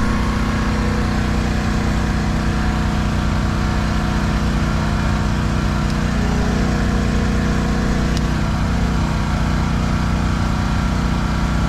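Vehicle engine idling steadily, with an even low hum that holds unchanged.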